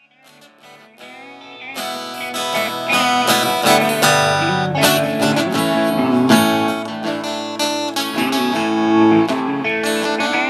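Acoustic guitar strumming chords, a song's instrumental intro, fading in over about the first two seconds.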